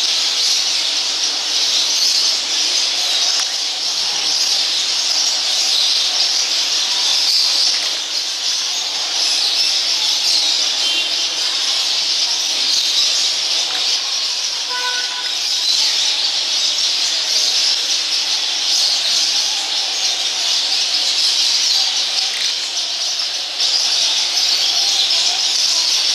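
Several domestic canaries singing at once, a continuous high-pitched chorus.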